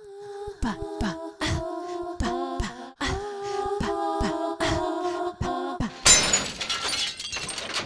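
Intro jingle: an a cappella vocal melody of held notes over regular short low thumps, ending about six seconds in with a loud, noisy crash.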